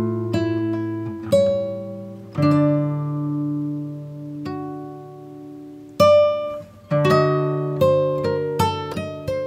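Background music of plucked acoustic guitar: a few ringing chords that die away slowly, then quicker picked notes near the end.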